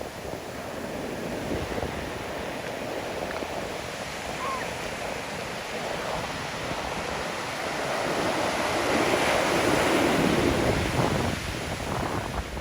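Pacific Ocean surf washing onto the beach: a steady rush that swells to its loudest about three-quarters of the way through, then eases off. Wind rumbles on the microphone.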